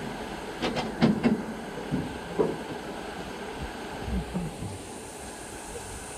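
Narrow-gauge steam train: a few sharp clanks about a second in over a steady background hiss, then a low rumble around four seconds in.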